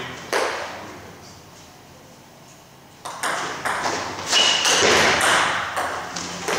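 Table tennis ball clicking off rackets and the table during a doubles rally: one hit just after the start, a lull, then a quick run of hits from about three seconds in.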